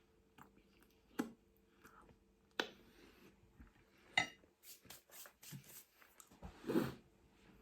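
Cutlery against a plate while eating: a few sharp clicks, the one about four seconds in ringing briefly, and a longer scrape near the end.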